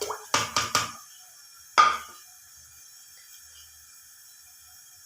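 Three quick clinks, then one louder ringing clink about two seconds in: a metal utensil knocking against a cooking pot as spices go into the water.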